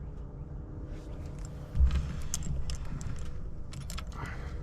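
Handling noise: a bump about two seconds in, then a run of light clicks and small metallic clinks over a low steady rumble.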